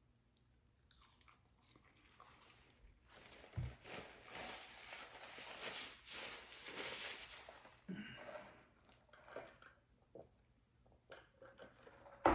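A person eating McDonald's chicken nuggets and fries close to the microphone: chewing and crunching. The densest stretch of noise runs from about three to eight seconds in, followed by scattered small clicks and a sharp knock at the end.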